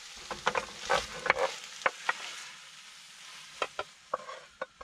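Chicken and vegetable stir fry sizzling in a frying pan on a portable gas stove, with a wooden spoon knocking and scraping against the pan. The sizzle dies away about halfway through as the pan comes off the heat, leaving a few sharp scrapes and taps as the food is scraped out onto a plate.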